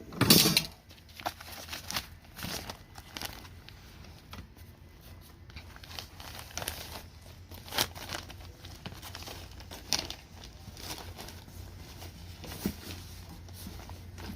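Packaging being handled and unwrapped: plastic and cardboard crinkling and tearing in irregular rustles, with scattered light knocks and a louder rustle at the start.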